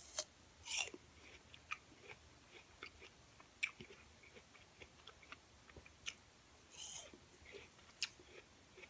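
A person biting into and chewing raw apple slices, giving faint, irregular crisp crunches and mouth clicks.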